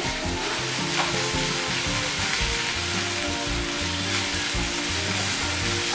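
Sliced onions and bell peppers sizzling steadily as they are sautéed in oil in a frying pan and stirred with a spatula, with soft background music underneath.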